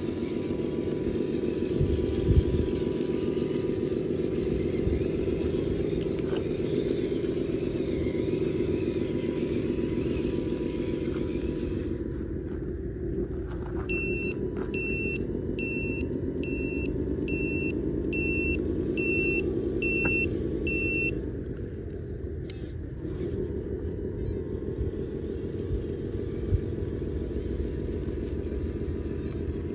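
Simulated diesel truck engine sound from the 1/14 Tamiya Mercedes dump truck's sound unit, running steadily, then rising in pitch as it revs and dropping back about three quarters of the way through. Midway, a high back-up beeper beeps about ten times in a steady row.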